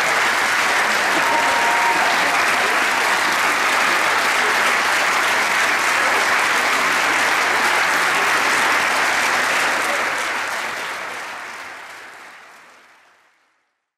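Large audience applauding steadily, with a few voices mixed in; the applause fades out over the last few seconds.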